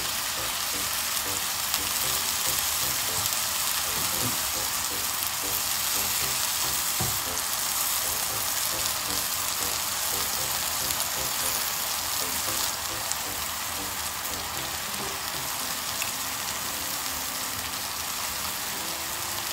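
Chicken pieces frying in hot oil and sauce in a wok, a steady sizzle with the liquid bubbling around the meat. The sizzle eases a little past halfway.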